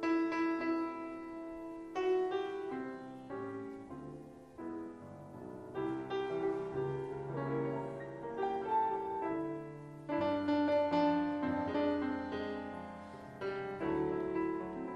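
Piano playing a slow, gentle passage: chords struck every few seconds and left to ring, with a melody moving over them.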